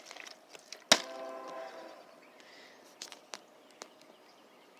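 A partly filled plastic water bottle thuds down onto concrete about a second in, and a short steady pitched sound follows and fades. A few faint taps come near the end.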